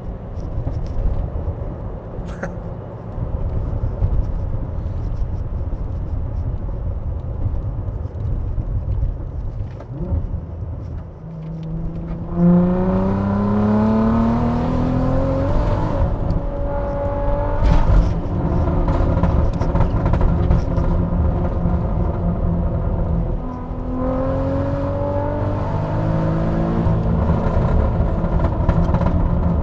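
Turbocharged 3.2-litre VR6 engine in a front-wheel-drive Volkswagen GTI, on a hard test drive. It runs at low revs for the first dozen seconds. Then, under full throttle, the engine note climbs steadily for about three seconds and settles after a gear change. A second rising pull comes near the end.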